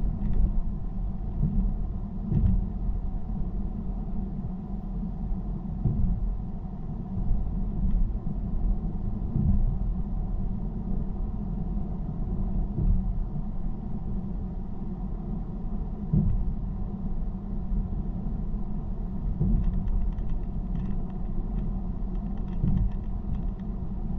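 Car driving at motorway speed: steady low road rumble from tyres and engine, with brief low thumps every few seconds.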